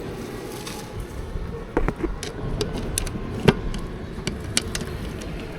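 Scattered light clicks and knocks of tools and appliance parts being handled during repair of a small household appliance, the sharpest about three and a half seconds in, over steady background noise.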